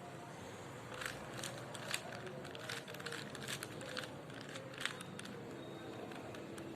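Layers of a plastic 4x4 Rubik's cube being twisted by hand: a quick irregular run of clicks and clacks from about a second in until about five seconds in.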